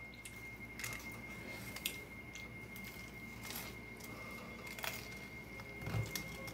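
Faint chewing with a few scattered sharp crunches as a toasted cheddar chalupa's fried shell is bitten and chewed, and a brief low thump near the end.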